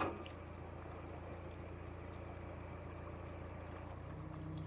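Narrowboat diesel engine running with a steady low hum at cruising tickover, with a single sharp click right at the start.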